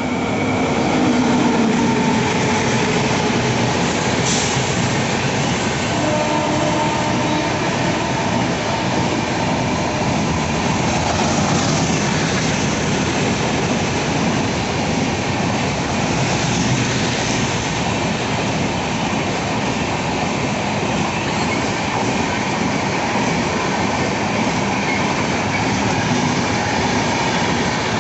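Express train of LHB coaches behind an electric locomotive passing close at speed: a loud, steady rumble and rattle of wheels on the rails, loudest as the locomotive goes by in the first couple of seconds.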